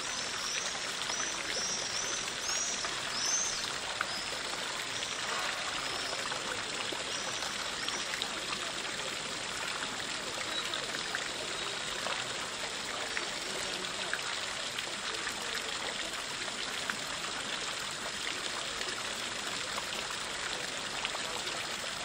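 Water from the Fontana del Pantheon's spouts splashing and trickling steadily into its marble basin. A series of short high chirps sounds over the first eight seconds or so.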